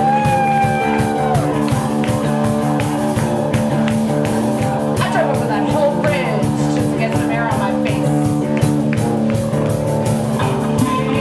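Live rock band playing: drums keeping a steady beat under held chords, with a sliding melodic line over the top.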